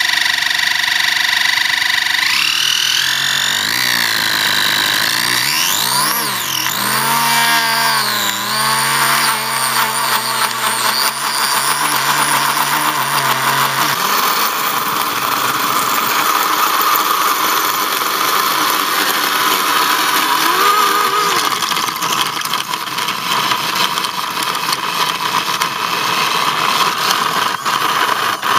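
Electric motor of a model Audi TT RC car doing a burnout. It whines through several rising and falling revs in the first half, then holds a steady high whine with a rougher, noisier edge as the rear tyres spin against the gritty surface.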